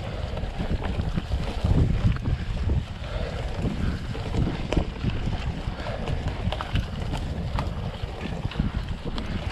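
Mountain bike riding over a rough dirt forest trail: wind buffeting the camera's microphone mixes with a low, uneven tyre rumble. Scattered sharp clicks and rattles come from the bike going over bumps.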